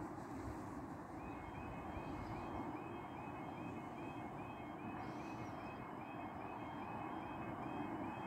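Level crossing audible warning alarm sounding as the crossing activates, a high electronic yodel repeating rapidly, about three times a second. It starts about a second in, over a steady low background hum.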